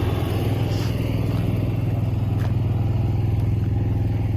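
RV's onboard Cummins Onan 5500 generator running steadily, a constant low engine hum.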